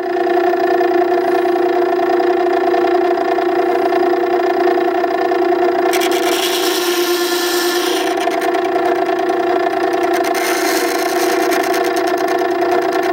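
Makita 9820 electric water stone sharpener running with a steady hum while a steel chisel is ground freehand on its coarse wheel to reset the bevel to 25 degrees. The rasp of steel on the wet stone comes in about six seconds in, pauses briefly, then returns louder near the end.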